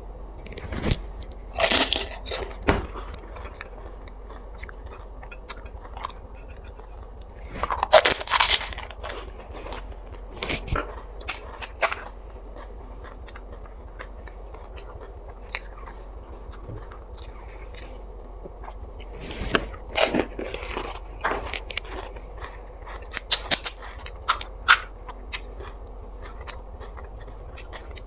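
Crisp fried fuchka (panipuri) shells crunching as they are bitten and chewed. The crackles come in scattered clusters of sharp bites, with quieter chewing between them.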